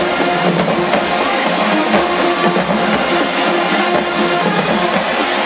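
Marching band playing: brass holding sustained chords over a drumline.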